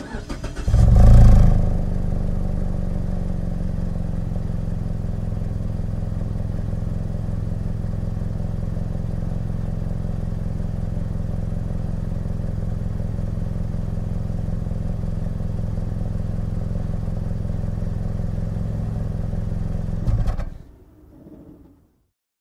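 Mazda CX-5 engine heard from behind the car: brief starter cranking, the engine catches with a rev flare about a second in, then settles into a steady idle. About twenty seconds in it is switched off and runs down to silence.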